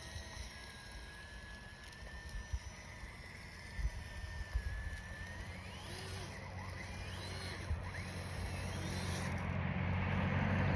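A road car approaching, growing steadily louder over the last few seconds. Before it there is only a low steady rumble and a faint, thin wavering whine.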